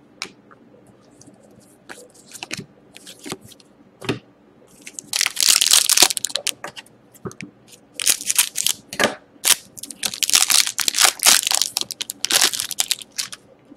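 A few light clicks of cards being handled, then from about five seconds in the foil wrapper of an Upper Deck SP Game Used hockey card pack crinkling and tearing as it is opened, in two long stretches.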